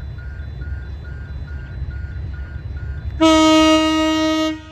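Diesel locomotive's horn sounding one loud blast of about a second and a half, starting about three seconds in, as the train nears a level crossing. Under it, the crossing's electronic warning bell dings about twice a second over a low rumble.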